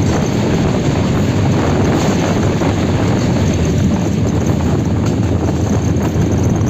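Diesel locomotive running light, with no train behind it: a steady noise of engine and wheels on the rails, heard from the moving locomotive.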